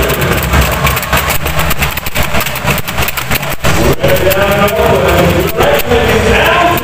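Singing over an arena sound system, loud and rumbling on the phone's microphone. The voices drop under a noisy rumble with many clicks in the first few seconds, and the sung melody returns about four and a half seconds in.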